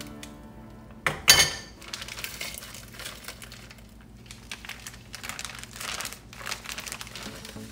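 Plastic bag of frozen mixed vegetables crinkling as it is shaken out and emptied into a pot of water: one loud burst about a second in, then irregular crackling of the bag.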